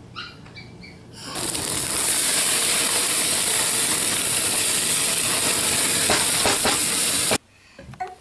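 Hamburger patties sizzling on a gas grill over open flames: a loud, steady hiss that starts about a second in and cuts off suddenly near the end.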